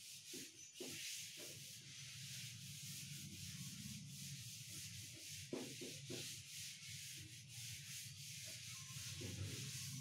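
Cloth duster wiping chalk off a chalkboard: a faint scrubbing hiss in rapid back-and-forth strokes.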